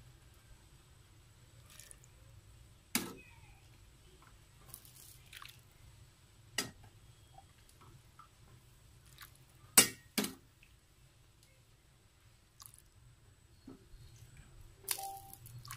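A few sharp knocks and clicks scattered over a faint steady hum, the loudest pair about ten seconds in.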